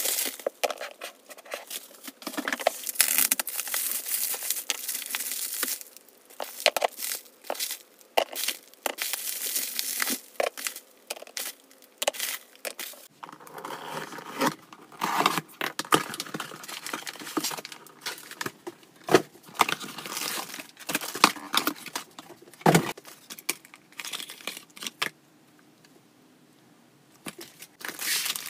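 Plastic packaging being handled: bubble wrap and inflated air-column wrap crinkling, rustling and crackling as it is pulled off metal pet-food cans, with a few sharper knocks in between. It dies down to quiet for a couple of seconds near the end.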